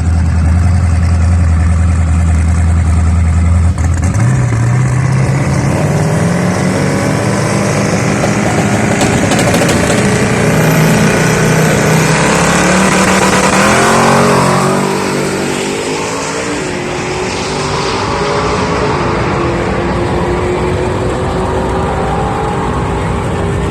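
1968 Camaro drag car's engine idling loudly on the line, then launching and running hard down the drag strip, its pitch climbing for about eight seconds through a quarter-mile pass. It then drops to a quieter, steadier engine sound.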